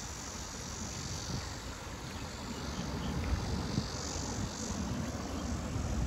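Outdoor ambience: uneven wind rumble on the microphone under a steady, high-pitched insect drone.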